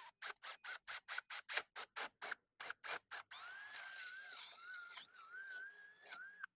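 Milwaukee cordless drill boring a half-inch hole into a PVC door jamb. For about the first three seconds the motor runs in short pulses, roughly four or five a second. It then runs continuously, its whine wavering in pitch as the bit cuts.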